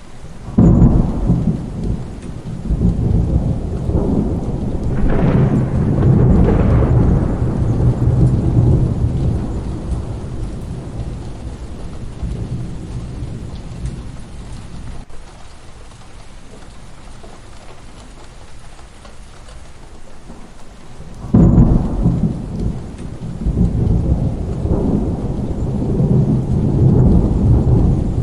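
Two peals of thunder over steady rain. The first breaks suddenly about half a second in and rumbles for several seconds before fading away; the rain carries on alone until a second peal cracks in about three quarters of the way through and keeps rumbling.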